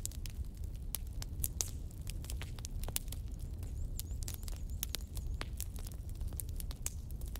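Fire crackling for a burning candle flame, with irregular sharp pops over a low steady rumble.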